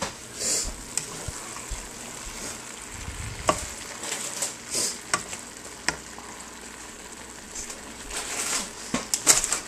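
Ground beef, onion and spinach sizzling in a frying pan while being stirred with a slotted plastic spatula, with a steady hiss and occasional sharp clacks of the spatula against the pan, several in quick succession near the end.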